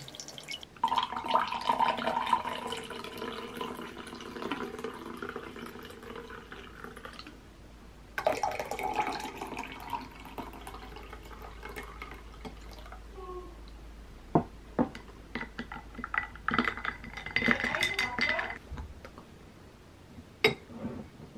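Iced coffee being poured from a glass carafe into tall glasses packed with ice, in two long pours with a steady tone from the filling glass. After that come sharp clinks of ice and a metal straw against the glass.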